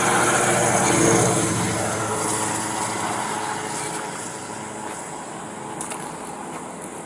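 A motor vehicle passing by on the road, loudest about a second in and then fading away over the next few seconds.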